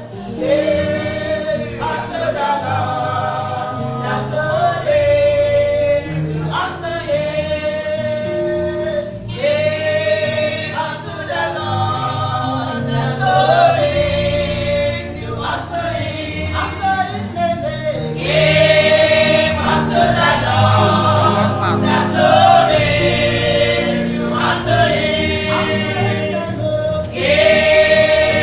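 Choir singing a gospel song, held and sliding notes in several voices over a steady low accompaniment; it swells louder about two-thirds of the way through.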